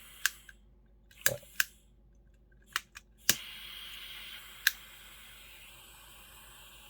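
Butane soldering iron's ignition switch clicked repeatedly, seven sharp clicks in the first five seconds, then butane gas hissing steadily from the tip from about three seconds in. The iron has not caught and lit.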